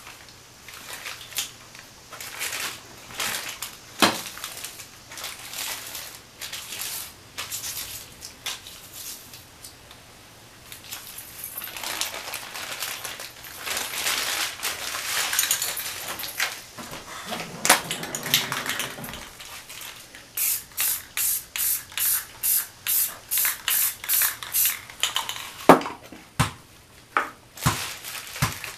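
Crumpled newspaper crinkling and crackling as it is pressed onto wet spray paint and peeled off. Near the end comes a quick, even run of about a dozen short strokes from a spray can, about three a second.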